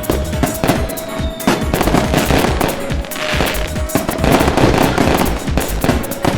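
Fireworks going off in rapid bangs, with a dense crackling stretch in the middle, over background music with a held tone.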